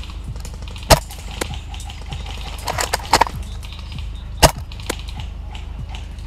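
Airsoft gunfire: two sharp cracks about three and a half seconds apart, with a few fainter clicks between them.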